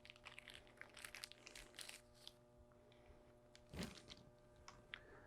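Near silence broken by faint small clicks and rustles of handling, clustered in the first two seconds, with one slightly louder click near the end.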